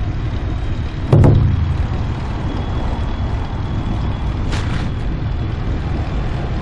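Street traffic and road rumble heard from a moving bicycle, a steady low noise with a loud thump about a second in and a short hiss later on.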